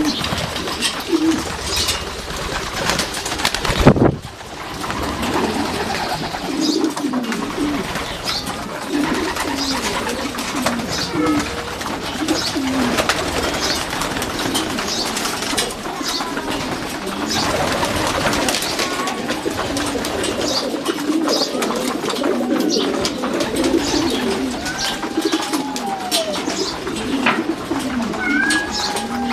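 A flock of racing pigeons cooing over one another, the wavering coos overlapping throughout, with scattered sharp clicks. A single loud thump comes about four seconds in.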